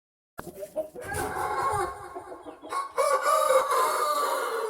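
Rooster crowing: a few broken opening notes from about half a second in, then one long drawn-out final note from about three seconds in that fades away.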